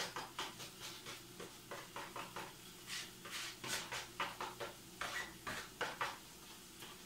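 A spoon scraping and tapping against a plate, scraping spilled olive oil off it into a pot: an irregular run of quick scrapes and clicks that stops about six seconds in.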